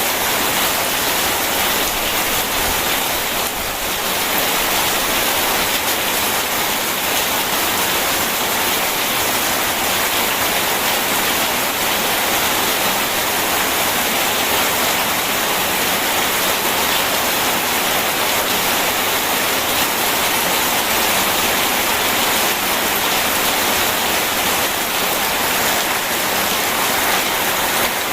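Steady heavy rain mixed with rushing river water, an even hiss with no breaks and no thunder.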